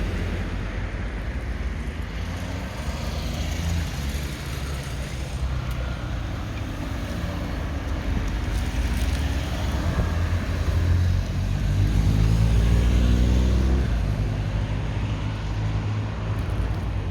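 A motor vehicle passing, its engine note rising and loudest about twelve seconds in before fading, over a steady low rumble.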